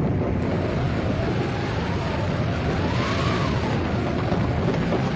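Radio-drama sound effects of a posse of horses galloping: a dense run of hoofbeats under a howling storm wind whose pitch rises and falls, peaking about three seconds in.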